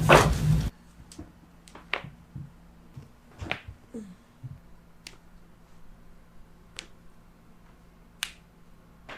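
A loud burst of noise that cuts off sharply under a second in, then about six short, sharp pops scattered a second or two apart: joints cracking under a chiropractic adjustment.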